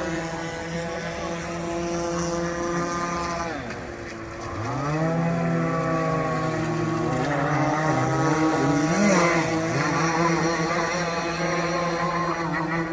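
Radio-controlled model boat's motor running at a steady high pitch, dipping about four seconds in as the throttle is eased, then winding back up a second later and holding.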